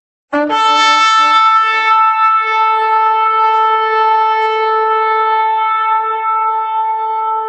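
Shofar (ram's horn) blown in one long blast. It starts suddenly about a third of a second in with a brief lower note, then settles on a steady higher note rich in overtones and holds it.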